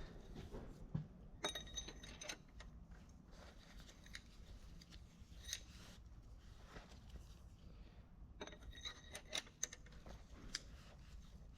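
Light metallic clinking and tapping of tools and small steel engine parts being handled, in two short clusters of clatter with brief ringing tones.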